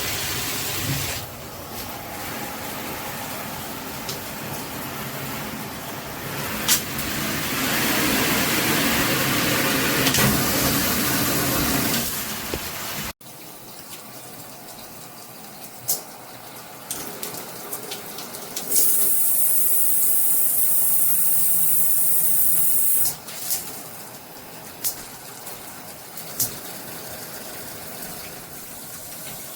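Water spraying from a handheld shower head as a steady hiss that swells partway through. It cuts off abruptly about 13 seconds in, giving way to a quieter spray with a few knocks, and a louder, sharper hissing spray plays for about four seconds later on.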